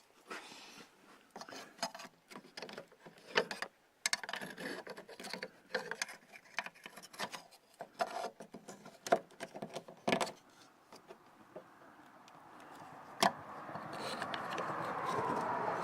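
Hand tools and small metal parts being handled on a car's liftgate hinge: a run of irregular clicks, taps and knocks, then a rubbing, scraping noise that swells near the end.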